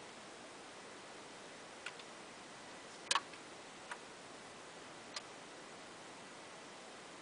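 Dual 1257 automatic belt-drive turntable's auto-start mechanism clicking as the tonearm lifts and swings out over the record: four sharp clicks, the loudest a double click about three seconds in, over a steady hiss.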